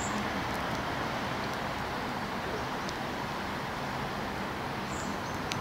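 Steady rumble and hiss of an approaching suburban electric train, still some distance off, with a few faint clicks.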